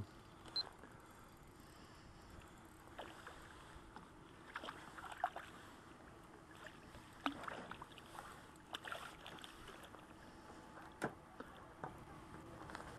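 Hooked trout splashing at the water's surface as it is played on a light spinning rod: scattered short splashes and slaps over a faint steady background.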